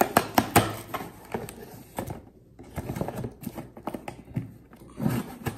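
Scissors cutting the packing tape on a cardboard shipping box: a run of sharp clicks and scratchy scrapes, pausing briefly about two seconds in.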